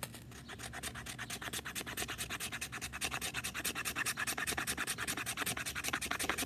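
Spine of a Cold Steel Finn Hawk knife scraping a stick of fatwood into fine shavings. The strokes are rapid and even, about eight a second.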